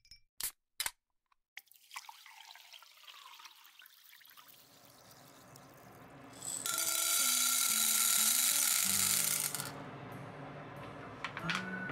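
Dried azuki beans poured into an empty aluminium pot: a loud, steady rattling hiss of beans hitting the metal for about three seconds in the second half. Light background music plays under it.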